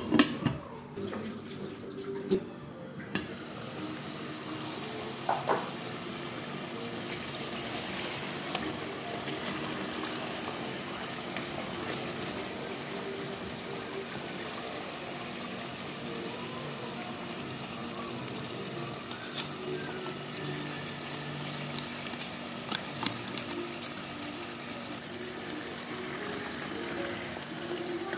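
Chicken pieces and potatoes cooking in sauce in a pot, a steady bubbling hiss, with a few sharp knocks of a utensil against the pot in the first few seconds and again near the end.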